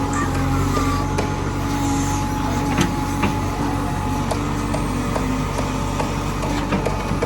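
JCB 3DX backhoe loader's diesel engine running steadily, with scattered sharp knocks.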